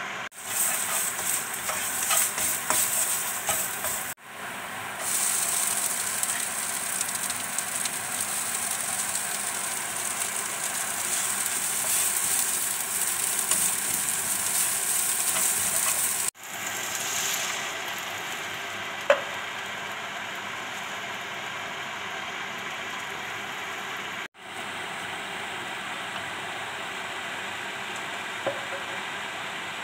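Oil sizzling in a non-stick frying pan as garlic and then chopped green onion and bok choy are stir-fried with a spatula. The sizzle is loud through the first half and drops to a quieter hiss after about 16 seconds, broken by a few abrupt cuts, with a sharp click near 19 seconds.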